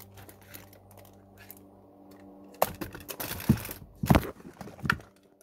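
Handling noise close to the microphone as a phone and its plastic case are fiddled with: scattered clicks, taps and rustling, busier from about halfway in.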